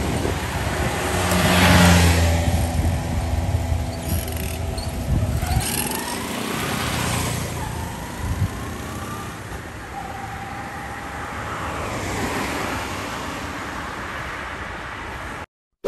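Small step-through motorcycle pulling away and accelerating, its engine pitch rising as it goes off down the road. Near the end another vehicle passes with tyre and road noise.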